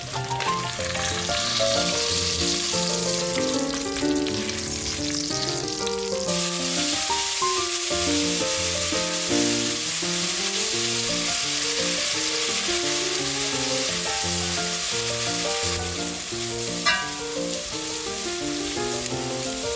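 Bacon fat sizzling in a pot as chopped onions fry and are stirred with a spatula; the sizzle grows much louder about six seconds in. There is one sharp tap near the end, and background music plays under the frying.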